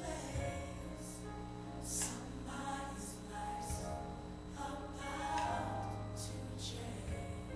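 Gospel music with a choir singing over sustained low notes, accompanying a sacred dance.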